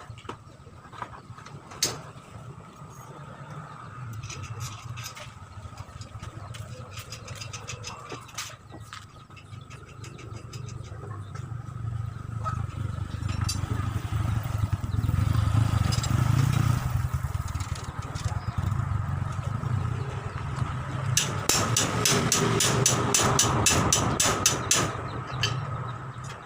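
A small engine running with a steady low hum and rapid ticking. It grows louder in the middle, eases, then swells again near the end.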